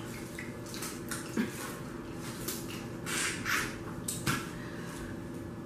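Boiled crawfish being peeled and eaten by hand: shells cracking and wet squishing and slurping as the meat and juice are sucked out, in a few short bursts.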